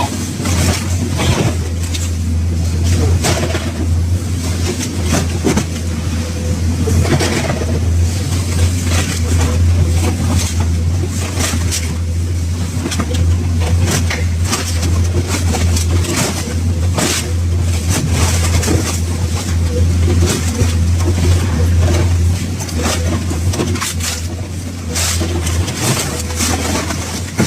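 A car body being torn apart: a heavy engine drones steadily under irregular clanks, crunches and scrapes of metal being ripped.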